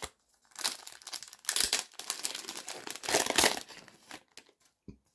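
Foil Pokémon card booster pack wrapper being torn open and crinkled by hand, in a run of irregular crackly bursts that stops about four and a half seconds in.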